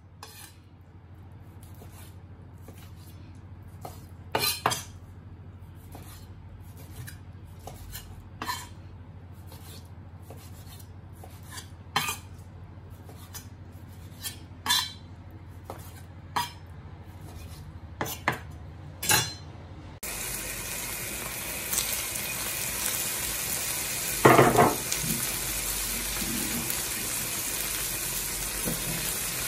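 A chef's knife slicing wagyu beef on a wooden cutting board, each cut ending in a sharp knock on the board, at irregular intervals a second or a few seconds apart. About two-thirds of the way through, the sound switches abruptly to the beef sizzling in a hot frying pan, a steady hiss with one loud clatter from the pan a few seconds later.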